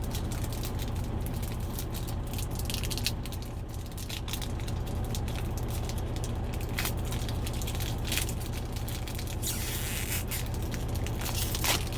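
Trading card pack being handled: foil wrapper crinkling and cards sliding and shuffling against each other, a run of short rustles and scrapes with a longer rustle about ten seconds in, over a steady low hum.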